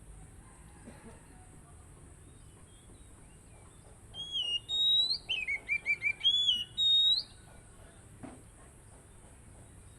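Oriental magpie-robin (kacer) singing. About four seconds in comes a loud burst of clear whistled notes, with slurred rising and falling phrases and a quick run of short repeated notes, lasting about three seconds.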